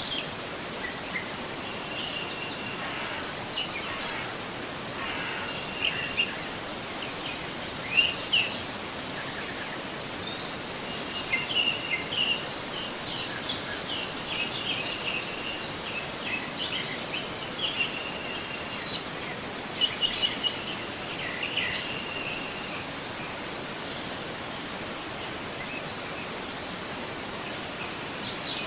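A forest river flowing with a steady rush of water, while small songbirds chirp and trill again and again above it, the loudest calls about 8 and 20 seconds in.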